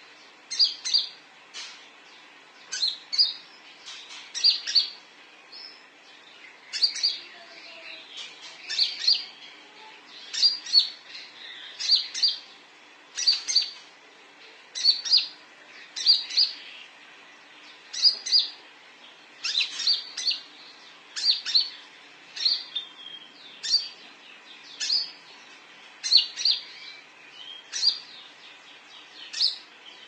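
Male konin (sunbird) calling: sharp, high chirps in quick runs of two to four, repeated every second or two.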